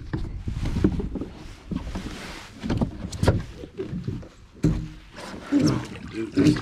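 Irregular thumps and knocks on a plastic pedal kayak's hull, with splashing water, as a large carp thrashes alongside the boat.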